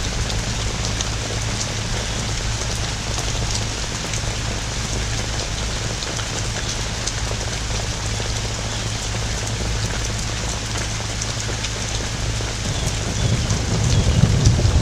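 Heavy rain pouring steadily, with scattered drops tapping close by. A low rumble of thunder starts building about two seconds before the end.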